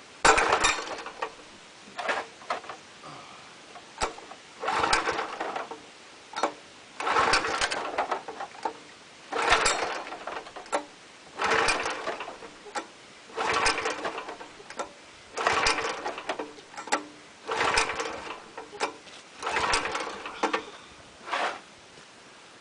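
Wisconsin Robin small engine being pull-started on its recoil starter about ten times, a pull every two seconds or so, turning over without catching. The owner found a mud dauber in the fuel petcock was shutting off its fuel.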